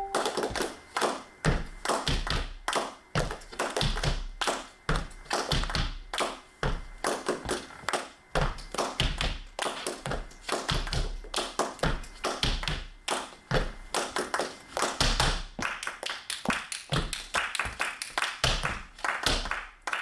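Flamenco zapateado footwork: two dancers' flamenco shoes striking the floor in rapid, rhythmic taps and stamps.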